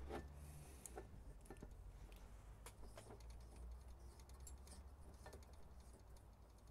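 Faint, scattered small clicks and ticks of a propane cylinder being turned onto the threads of an Optimus Polaris stove's propane adapter.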